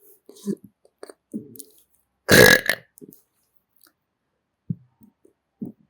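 A person burps loudly close to the microphone about two seconds in, one burp lasting about half a second. Soft short mouth sounds come before and after it.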